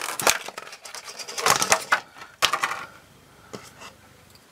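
Plastic packaging being handled as a miniature is taken out: a run of crackles and sharp clicks, densest around the middle, then a few faint taps.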